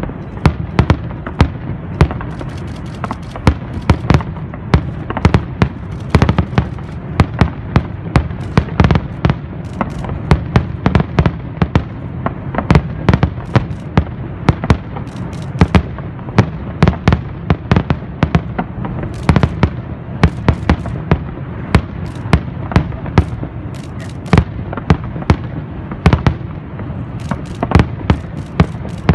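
Fireworks going off continuously: a rapid, irregular string of sharp cracks and bangs, several a second, over a steady low rumble of booms.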